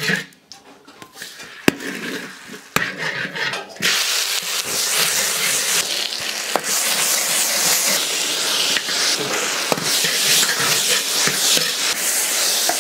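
A metal ladle clinks and knocks against a large iron wok a few times, then chicken pieces start sizzling in hot oil about four seconds in: a sudden, dense, steady hiss with occasional ladle scrapes.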